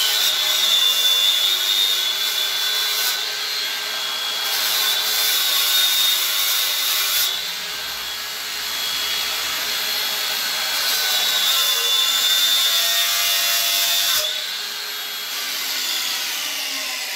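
Angle grinder with its disc cutting into a block of ash wood. Its high whine sags in pitch as the disc bites into the cut and picks up again as it is eased off, several times over.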